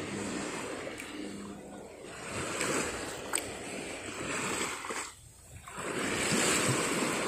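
Shallow seawater lapping and splashing at the surface, swelling and easing, with a brief lull about five seconds in.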